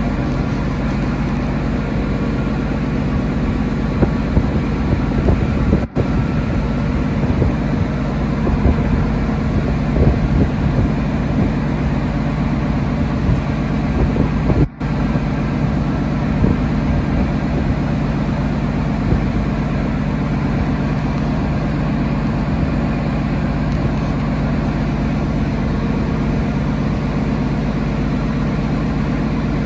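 Diesel engine of an XPT power car running steadily with a low, even drone. The sound drops out very briefly twice, about 6 and 15 seconds in.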